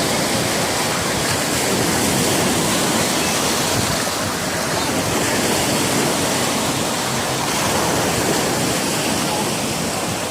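Sea surf washing up the shore: a steady, continuous rush of waves.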